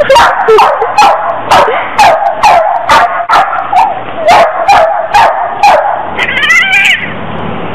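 A dog barking rapidly, about a dozen sharp barks at roughly two a second, then a longer wavering whine near the end.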